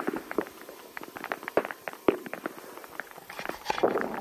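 A rapid, irregular string of sharp clicks and snaps. About three seconds in, they grow denser and louder.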